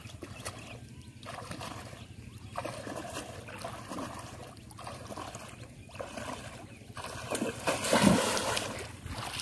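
Wading through shallow water, sloshing and splashing step by step, then a louder splash about eight seconds in as a bamboo polo fish trap is plunged down into the water.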